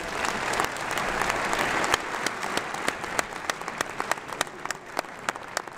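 Audience applauding: a dense round of clapping that thins out into scattered single claps and fades near the end.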